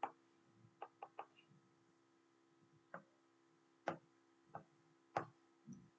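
Near silence with about nine faint, short clicks and taps scattered unevenly, the kind made while operating a computer, over a faint steady hum.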